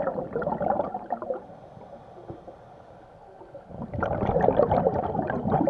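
Scuba regulator exhaust bubbles heard underwater: a dense gurgling that fades about a second and a half in and comes back strongly about four seconds in.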